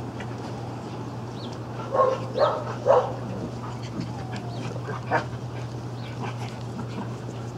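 Dogs barking: three short barks in quick succession about two seconds in, and one more a little after five seconds, over a steady low hum.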